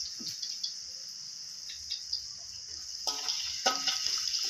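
Palm sugar and pounded garlic, coriander-root and pepper paste sizzling steadily in a little oil in a wok. A metal spatula scrapes and clicks against the pan from about three seconds in.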